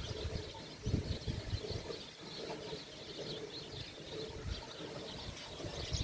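A cow being hand-milked by two milkers: rhythmic squirts of milk hitting the milk in a steel pail, strongest in the first second or so and softer through the middle. The cow gives a soft, easy stream.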